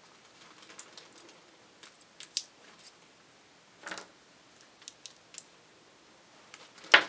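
Light, scattered clicks and taps of a small hard-plastic Playmobil figure being handled in the hands, with a sharper click near the end.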